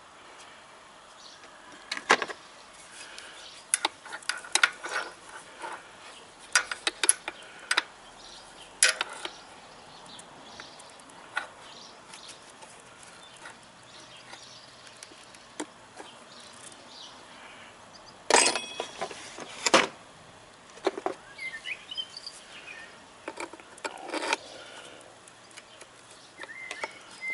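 Scattered clicks, taps and rubbing from hands working at a motorcycle's battery mounting, with two louder clatters about 18 and 20 seconds in.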